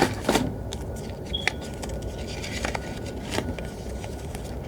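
Scattered light clicks and short scrapes of a small product package and bottle being handled, over a steady low background noise.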